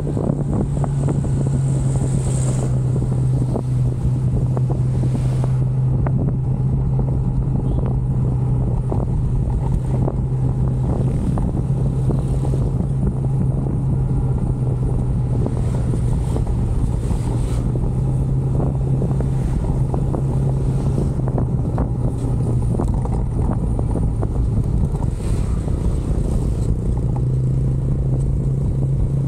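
Motorcycle engine running at a steady cruising speed, a constant low hum, with wind noise on the microphone. The engine note sags slightly about three-quarters of the way through and picks back up near the end.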